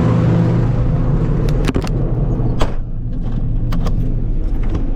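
An engine running at a steady speed, with a handful of sharp clicks and knocks over it from about a second and a half in.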